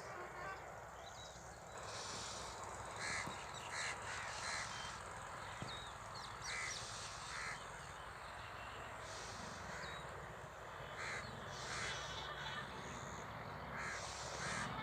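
Crows cawing, short harsh calls in twos and threes recurring every few seconds over a steady background hiss.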